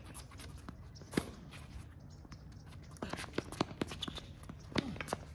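Tennis rally on a hard court: sharp pops of racket strings striking the ball and the ball bouncing, with quick footsteps and shoe scuffs on the court. A pop about a second in, a cluster around three seconds in, and another loud pop near the end.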